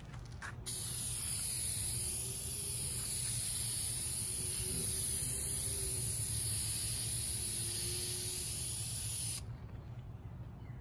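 Dupli-Color vinyl and fabric aerosol spray paint can spraying in one continuous hiss of about nine seconds, starting just under a second in and cutting off sharply near the end, with a thin high whistle over it.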